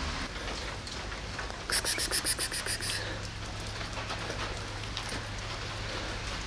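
Steady rain falling. About two seconds in comes a quick run of about ten sharp clicks lasting just over a second.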